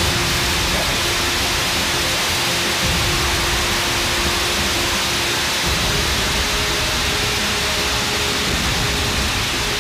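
Light aircraft engine running steadily, heard from inside the cockpit as a loud, even rush of noise with a faint steady hum.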